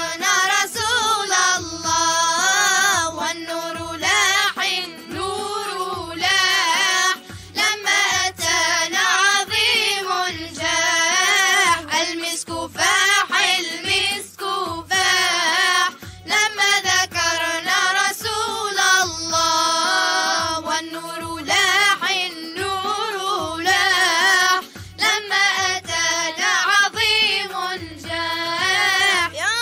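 Young voices singing an Arabic nasheed, drawing out long ornamented notes that waver up and down, over a steady low drum beat.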